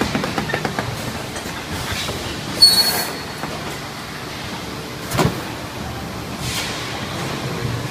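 Thermoform packaging machine for sliced kashar cheese running: steady mechanical clatter with quick clicking at first, a sharp hiss about two and a half seconds in, a knock just after five seconds and a softer hiss at about six and a half seconds.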